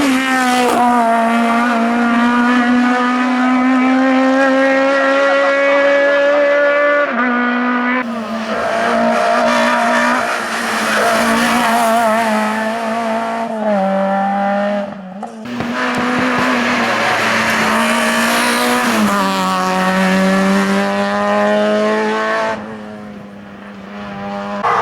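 Racing car engine at high revs on a hill climb, held at a steady high pitch that drops in steps several times as the driver shifts or lifts, with a brief dip about two-thirds in. Tyres squeal at times. The car fades away near the end.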